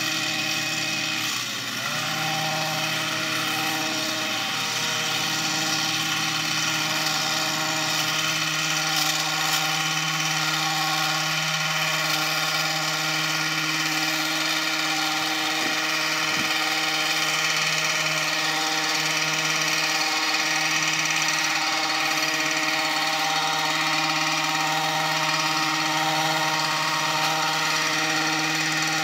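Hedge trimmer's small engine running steadily at speed while cutting shrubs, with a brief dip in engine speed about a second and a half in.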